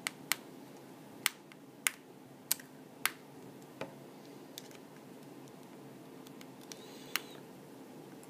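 Micro Phillips screwdriver clicking against the tiny screws and steel midframe of an iPhone 4 as the screws are backed out: a string of short, sharp clicks, about seven in the first four seconds and one more near the end, over a faint steady hum.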